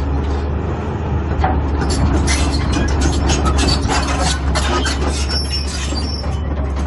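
Caterpillar 320BL crawler excavator's diesel engine running steadily while its steel tracks clank and squeal as the machine travels and turns, with a cluster of sharp metallic clanks through the middle.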